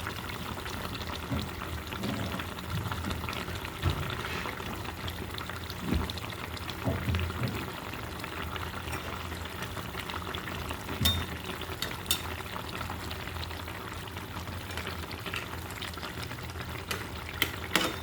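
Pangas fish and vegetable curry with thin gravy simmering and bubbling in the pan, with a few sharp clicks of a utensil against the pan.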